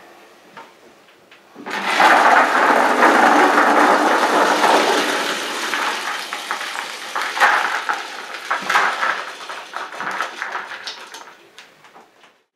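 Grain spod mix of peas, corn, wheat and hemp poured from a stainless steel pot into a plastic bucket: a dense rushing patter of grains that starts suddenly about one and a half seconds in, then thins out to scattered clicks and fades near the end as the last grains are shaken out.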